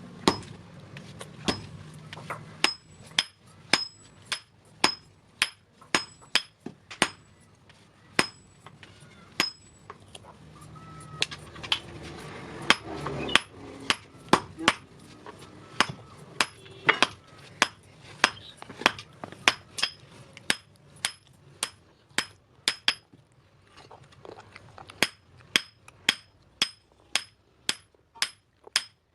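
Blacksmith's hand hammer striking steel on an anvil again and again while forging scissors, each blow ringing. The blows come about once or twice a second, pause briefly after the middle, then come quicker near the end.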